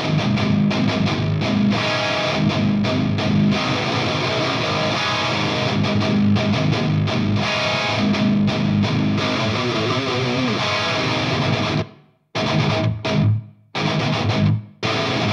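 High-gain, distorted metal rhythm guitar riff on an ESP LTD SCT-607B seven-string baritone guitar with EMG pickups, played through Line 6 Helix Native's Angl Meteor amp model. The tone is a modern, death-metal-inspired sound. It plays continuously with heavy low chugs, then about twelve seconds in breaks into short stop-start chugs separated by brief silences.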